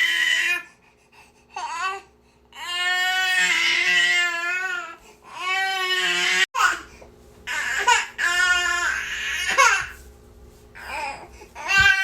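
Infant crying hard: a string of long wails, each a second or two, with short breaths between them.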